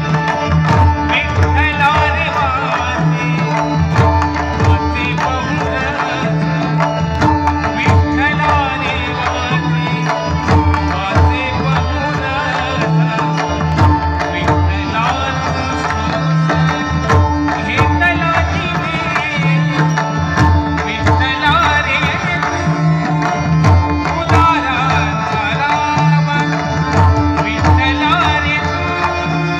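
A large ensemble of pakhawaj barrel drums, some 125 of them, playing a steady rhythm together, accompanying a melodious voice singing a Marathi devotional abhang.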